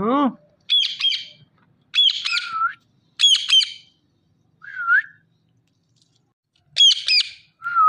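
Indian ringneck parakeet giving sharp, high squawking calls in short bursts, often two or three in quick succession, about six bursts spaced roughly a second apart.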